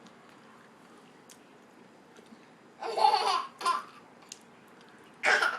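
Baby laughing in short breathy bursts, a cluster about three seconds in and another near the end.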